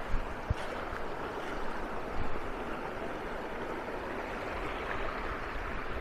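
Small creek cascading over rocks in a low waterfall: a steady rush of water, with a few soft knocks in the first couple of seconds.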